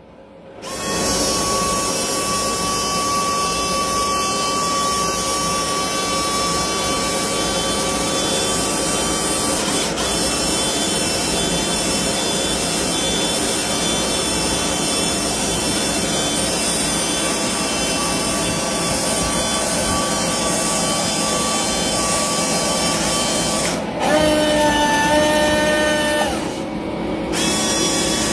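Small electric hydraulic pump of a scale RC hydraulic excavator arm running steadily with a whine while the arm's hydraulic cylinders move. About four seconds before the end the whine jumps to a different, higher-pitched set of tones for a couple of seconds, then settles back.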